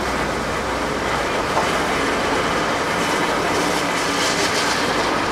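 Komatsu crawler excavator moving on its steel tracks, its diesel engine running and the track links rattling steadily.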